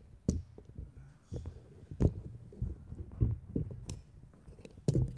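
Handling noise from a phone being fitted and adjusted in a tripod mount: irregular clicks, knocks and low thumps of fingers and plastic against the phone's body and microphone.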